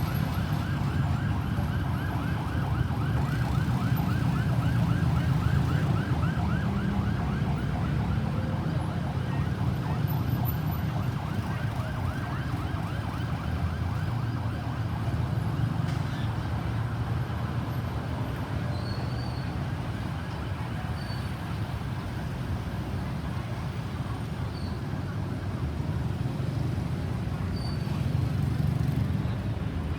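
Ambulance siren in a fast yelp, rapid up-and-down sweeps that fade out about halfway through, over a steady low rumble of traffic.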